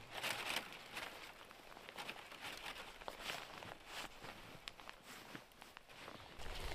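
Irregular footsteps crunching and scuffing in packed snow, with some rustling; the loudest crunches come in the first second.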